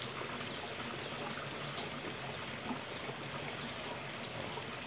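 Steady trickle of running water at a fish pond.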